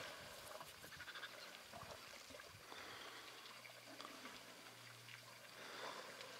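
Near silence: faint waterhole ambience with light trickling, and a faint steady low hum in the second half.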